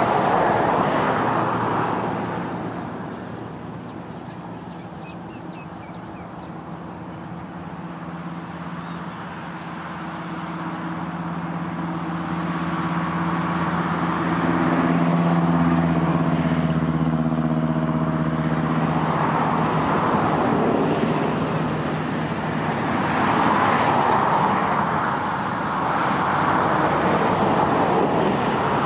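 Diesel engines of excavators and trucks working, a steady engine hum that strengthens in the middle, under a rushing noise that swells and fades several times.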